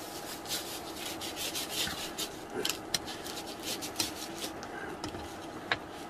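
Tableware being handled at a meal: a run of short rubbing and scraping noises, with a few sharp clicks of hard items knocking together.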